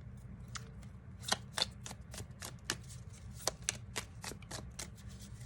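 A tarot deck being shuffled by hand: a run of irregular card snaps and slaps, a few a second, over a low steady hum.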